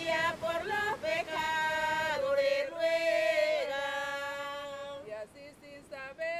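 An alabao, a religious folk chant from Chocó, sung unaccompanied, with long held notes that fade somewhat near the end.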